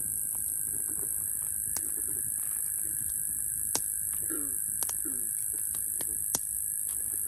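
Night insect chorus of crickets, a steady high-pitched trilling with a fainter steady tone beneath it. A few sharp clicks sound over it.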